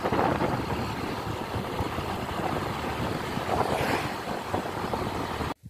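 Riding noise on a moving motor scooter: steady wind rush on the microphone over the engine and tyres, cutting off suddenly near the end.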